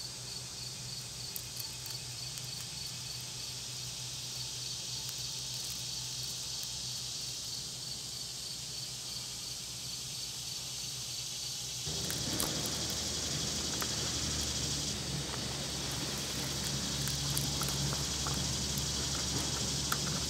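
Insects chirping: a steady high chorus with one insect giving evenly spaced high chirps. About twelve seconds in, the sound changes abruptly and gets louder, with a low rumble and a few faint ticks.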